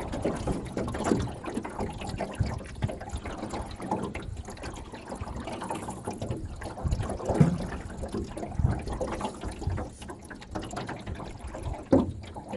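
Small waves lapping and splashing irregularly against the side of a small boat on choppy lake water.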